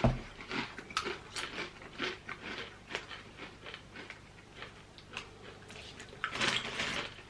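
Hand-cooked, thick-cut crisps being bitten and chewed, with irregular crunches and a louder stretch of crunching near the end.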